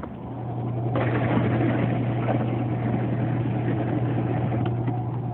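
A motor or engine running steadily with a low hum, a louder rushing noise coming in about a second in.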